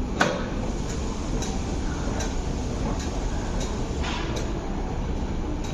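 Steady hum of a stationary MTR MLR electric train, with a sharp knock just after the start as one of its sliding carriage doors shuts, and fainter clicks repeating every second or so.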